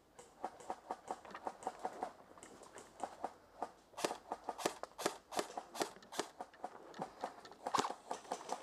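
Airsoft gunfire: irregular sharp snaps and clicks, several a second, growing louder and sharper from about four seconds in.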